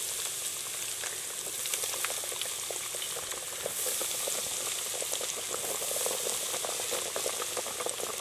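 Breaded fish fillets deep-frying in a basket of hot oil: a steady sizzle with dense crackling and bubbling, the crackles thickening about halfway through.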